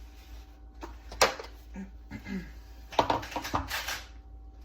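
A few sharp clicks and knocks of hard objects being handled, the loudest about a second in and a quick cluster about three seconds in, with a brief rustle just after.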